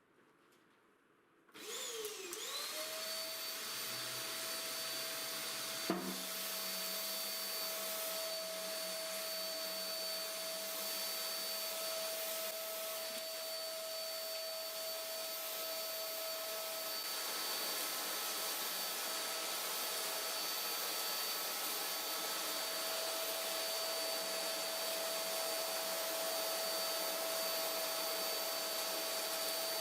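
Homemade construction vacuum cleaner switched on: its motor spins up with a rising whine about a second and a half in, then runs steadily with a high whine over rushing air. A single sharp click about six seconds in.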